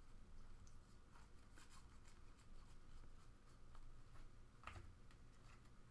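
Faint soft ticks and rustles of baseball cards being flipped through by hand and slid from one hand to the other, with one slightly louder click late on.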